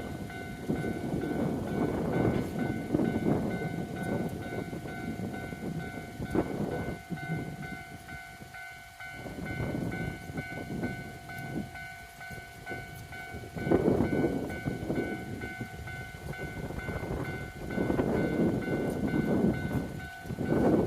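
Train running past a railway level crossing, its rumble rising and falling in waves and loudest near the start, about two-thirds through and near the end. Steady high ringing tones from the crossing's warning bell sound throughout.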